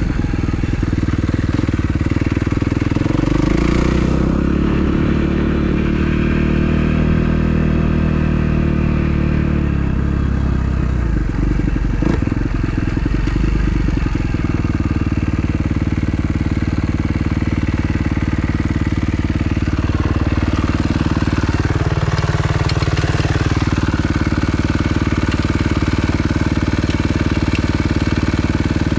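2012 Kawasaki KX250F four-stroke single-cylinder dirt bike engine, freshly rebuilt, revving and rising and falling in pitch for roughly the first half, then settling into a steady idle for the rest.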